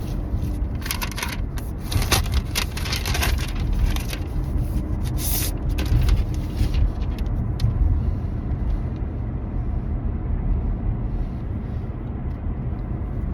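Car driving, its steady low road and engine rumble heard from inside the cabin, with short rustles and clicks over the first half.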